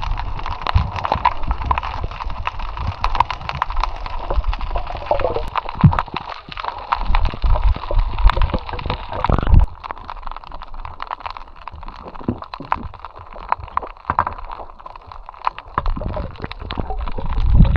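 Shallow seawater sloshing and gurgling among rocks during shoreline foraging, with wind rumbling on the microphone and many small knocks and clicks.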